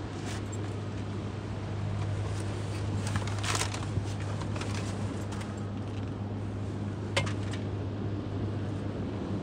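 An automatic car wash heard from inside the car's cabin: a steady low hum with a haze of water spraying on the body and windows, and a few sharp clicks and rattles, the clearest about three and a half seconds in and again about seven seconds in.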